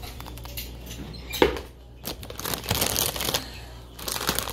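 A plastic candy bag crinkling as it is handled, in two stretches in the second half, after a single sharp click about a second and a half in.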